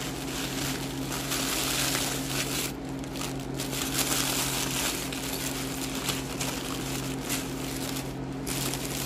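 Wrapping being handled and unwrapped by hand: an uneven rustling that swells and dips throughout, over a steady low hum.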